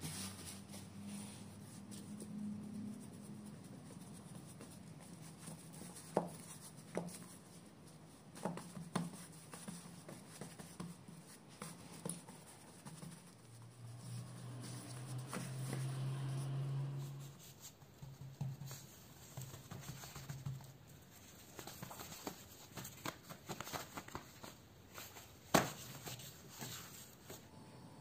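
Hands pressing and patting pizza dough flat on a floured worktop: soft scuffing with scattered light taps, and one sharper knock near the end.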